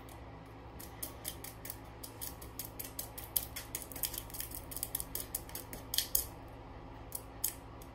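Baking soda being added to a homemade volcano: a quick, irregular run of small clicks and scrapes from about a second in, growing busier toward the end.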